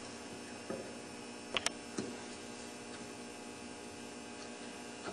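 A few light clicks and taps as the magneto side cover of an ATV engine is handled and worked loose, over a steady faint hum.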